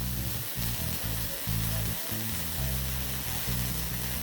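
Background music carried by a low bass line that changes note every half second or so, over a steady hiss.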